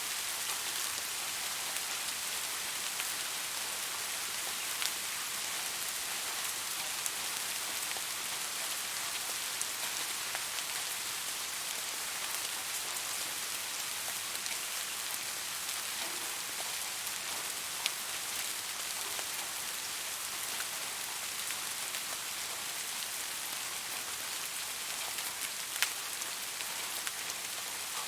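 Steady rain falling, an even hiss of drops with occasional sharper single drip ticks.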